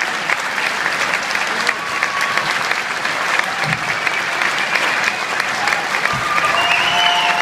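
Concert audience applauding, dense steady clapping.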